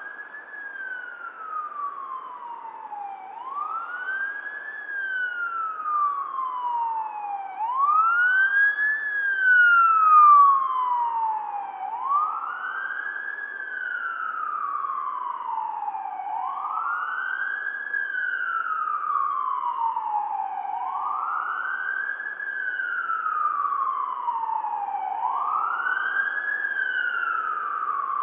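Emergency-vehicle siren in wail mode: each cycle sweeps quickly up in pitch and then falls slowly, repeating about every four seconds. It grows louder to a peak about a third of the way in, then holds steady.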